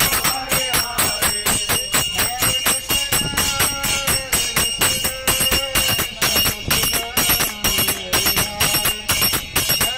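Kirtan: a man chanting a devotional melody into a microphone over a steady, quick beat of brass hand cymbals (karatalas) and hand clapping.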